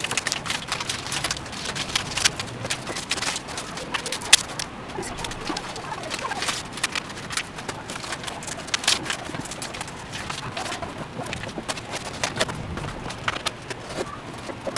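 Irregular clicks, taps and rustles of a ribbon being pulled and tied around a wooden door.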